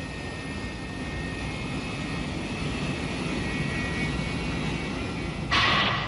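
Spaceship engine sound effect: a steady low rumble with a faint high whine, slowly swelling. It is cut across near the end by a sudden, louder hissing sound.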